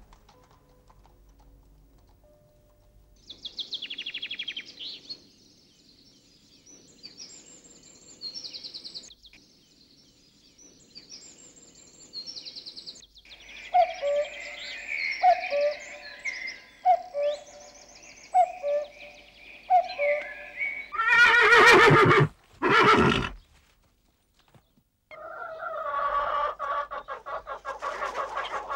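Countryside sound effects: birds chirping and singing, with a short call repeated about every second and a half. A horse then whinnies loudly in two parts, and hens start clucking near the end.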